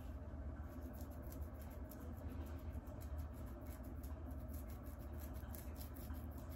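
Fingernails scratching and picking at a flaky scalp through the hair: a quick, irregular run of crisp little scratches over a low steady hum.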